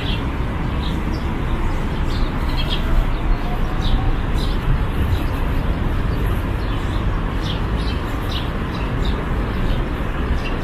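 Steady city background: a continuous low traffic rumble, with short high bird chirps about once a second.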